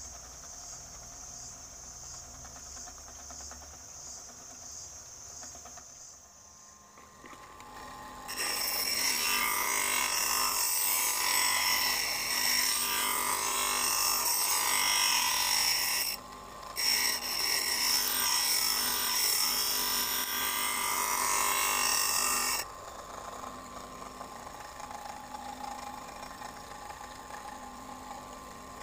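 Bench grinder wheel grinding a tungsten-carbide-tipped planer blade held against it by hand. It is a harsh, hissing grind that starts about eight seconds in, breaks off briefly once, and stops a few seconds before the end.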